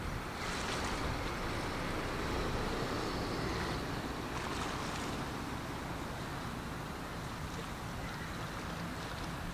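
Outdoor wind noise on the microphone with small waves splashing, a steady low rumble underneath and brief hissing swells about half a second and four and a half seconds in.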